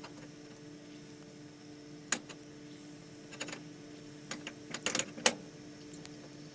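Hot oil crackling and popping as banana fritter batter is dropped into it: scattered sharp pops, a few at a time, bunching together and loudest near the end, over a steady low hum.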